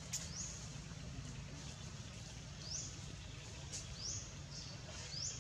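A bird's short high chirp, rising in pitch, repeated four times with one to two seconds between calls, over a steady low background rumble.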